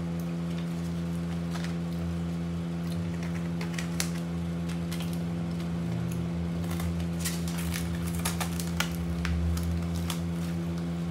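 Clear plastic food pack being handled and picked open, its plastic giving scattered short crackles and clicks, most of them between about four and nine seconds in, over a steady low electrical hum.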